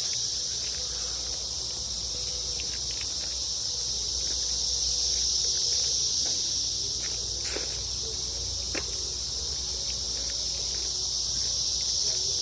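Chorus of periodical cicadas: a steady, high-pitched droning hum that swells slightly mid-way, with a few faint clicks.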